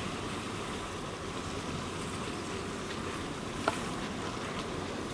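Steady waterside noise of wind and water, with one short sharp click about three and a half seconds in.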